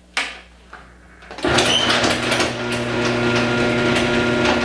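A door shutting with a knock, then a loud, steady machine hum with a buzzing tone that starts suddenly about a second and a half in and runs on evenly.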